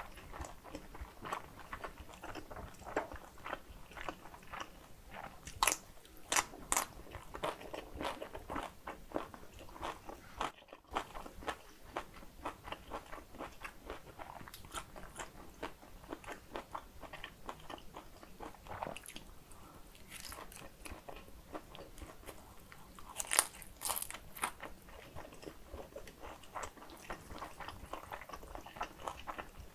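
Close-miked eating of pan-fried galbi and shrimp dumplings and spicy kimchi noodles: steady biting and chewing with many small wet mouth clicks. Sharper crunches come about six seconds in and again around twenty-three seconds, with a brief moment of silence near eleven seconds.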